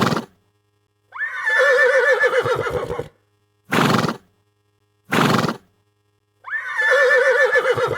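Horse whinnying twice, each call about two seconds long with a wavering, shaking pitch. Between the calls come three short, sharp bursts of noise.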